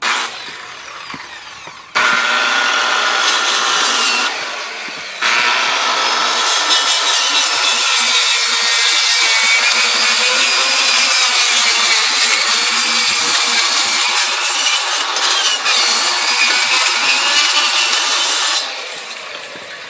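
A corded power saw starts about two seconds in and cuts into wood wall shingles to trim them back. It dips briefly, then runs on steadily with a wavering pitch and winds down near the end.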